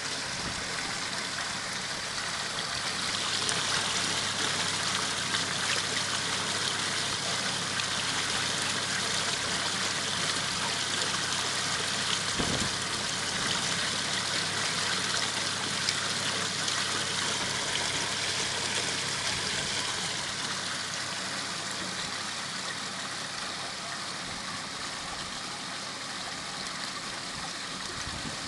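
Water steadily splashing and trickling out of a small stainless steel bakki shower / waterfall blade filter, a little louder from about three seconds in until about twenty seconds.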